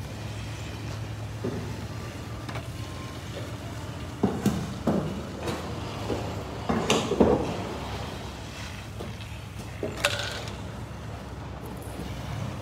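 Toyota Land Cruiser's V6 petrol engine running at low speed as the SUV rolls slowly across the yard, a steady low hum. A few short, louder sounds stand out around the middle and near the end.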